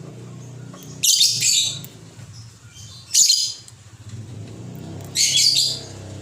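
A lovebird giving three short, shrill calls about two seconds apart.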